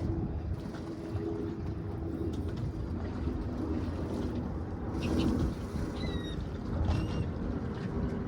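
A boat's engine running steadily, with wind and water noise. Two short high chirps sound near the end.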